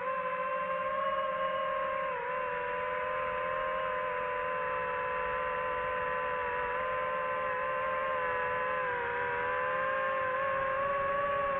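DJI FPV drone's motors and propellers whining steadily in flight. The pitch dips briefly about two seconds in and sags and recovers near the end as the throttle changes.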